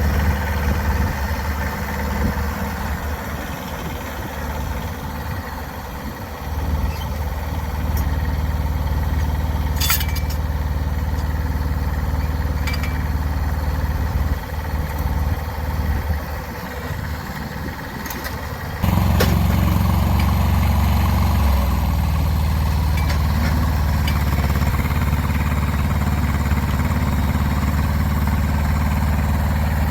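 Small diesel engine of a Kubota BX1500 compact tractor running at a low, steady speed. About two-thirds of the way through it is throttled up sharply, then eases back a little and holds there. A few short metallic clinks sound over it.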